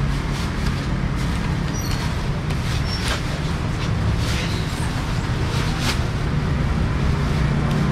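Steady low rumble like a running engine or passing traffic. Over it come a few short scrapes and rustles as a knife cuts salmon on a cutting board and plastic bags are handled.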